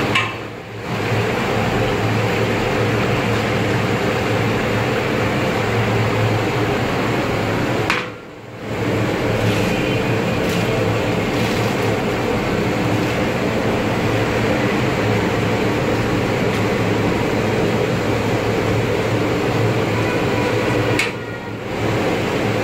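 Steady rushing noise with a low hum, dipping briefly three times: about half a second in, about eight seconds in, and near the end.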